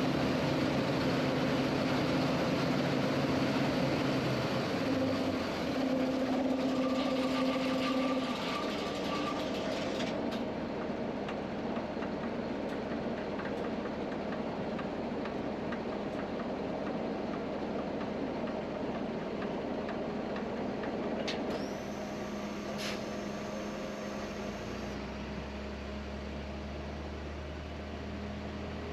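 A tractor and potato harvester running steadily, the engine hum under a dense mechanical rattle. The engine's tone changes about a quarter of the way through, and a deeper hum comes in near the end.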